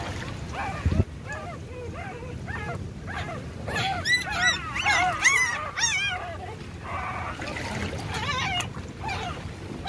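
Young puppies crying in a quick series of short, high, rising-and-falling whimpers, loudest about four to six seconds in. A single thump about a second in.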